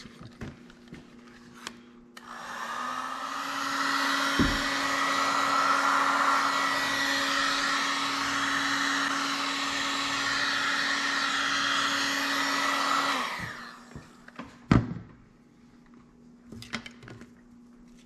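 Electric heat gun switched on about two seconds in, its fan blowing steadily with a steady hum for about eleven seconds while it shrinks heat-shrink tubing over soldered wire joints, then switched off and winding down. A single knock comes during the blowing, and a couple of sharp clicks follow afterward.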